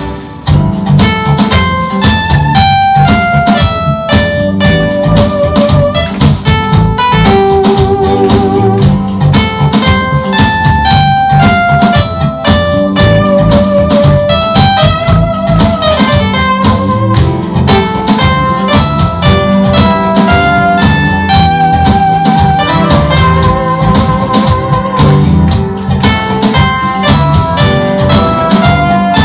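Instrumental pop melody played on a Yamaha keytar, a single lead line whose held notes waver with vibrato, over a backing track with drums and bass.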